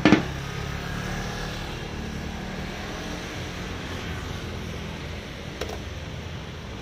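Steady low hum of street traffic and engines, with one sharp, loud knock right at the start and a faint click about five and a half seconds in.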